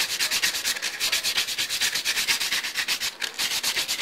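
Sandpaper rubbed by hand back and forth over a cut metal plate in rapid, even strokes, about eight a second, giving a steady scratchy hiss.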